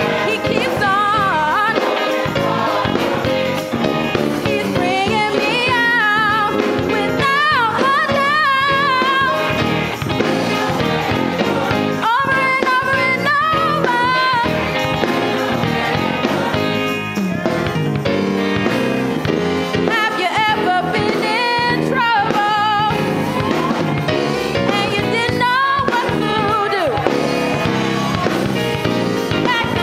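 Gospel choir singing with instrumental accompaniment, a strong wavering vocal line carrying the melody.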